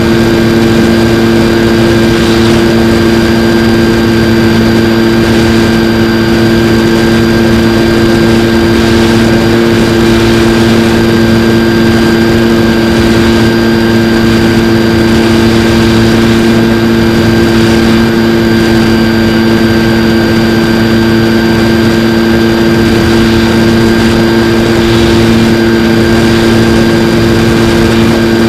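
Skywalker X-8 flying wing's electric motor and pusher propeller at steady cruise, picked up by the onboard camera: an unchanging hum of several held tones over a constant rush of wind.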